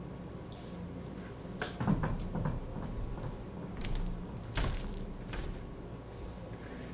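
Soft knocks and rustles of a barefoot performer getting up from a wicker chair and walking across a stage floor strewn with paper scraps, loudest about two seconds in, with a sharper knock a little after the middle, over a steady low hum.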